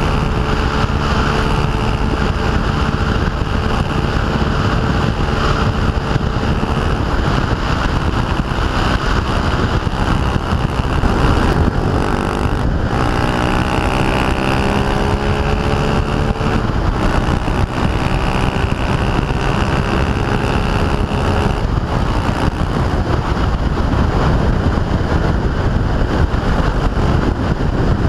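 Yamaha WR125X's single-cylinder 125 cc four-stroke engine running through an Arrow full exhaust system while riding, its pitch rising and falling with throttle and gear changes, with a long climb in revs about halfway through. Heavy wind rush on the microphone underneath.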